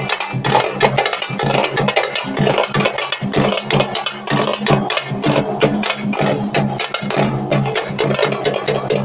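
Live street drumming: a small drum and a big bass drum beaten with sticks in a fast, busy rhythm, with a plucked string instrument playing over a steady low drone.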